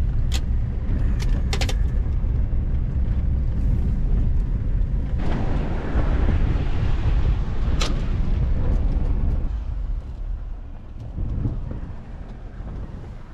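A truck driving slowly on a packed-dirt trail, heard from inside the cab: a steady low rumble of engine and tyres, with a few sharp clicks. It turns quieter about ten seconds in.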